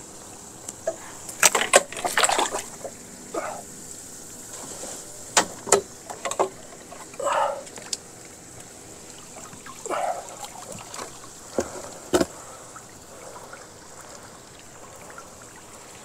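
Water splashing and sloshing beside a small jon boat, with scattered sharp knocks and clatter against the boat, as a snagged line and branch are worked alongside.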